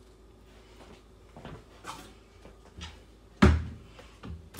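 Kitchen handling noises: a few light knocks, then one loud, sharp knock with a short ring-off about three and a half seconds in, and two smaller knocks near the end.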